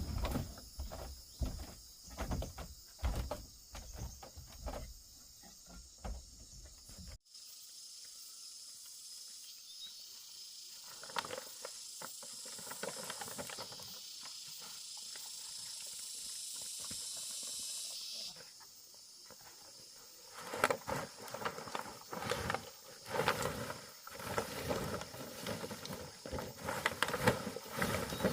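Irregular knocking and tapping of hand work, stopping abruptly about seven seconds in. A steady high hiss follows for about ten seconds, then dense knocking starts again near the end.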